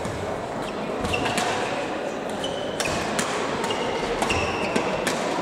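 Badminton hall ambience: rackets hitting shuttlecocks in sharp, irregular cracks from several courts, with brief high shoe squeaks on the court floor and a murmur of voices underneath.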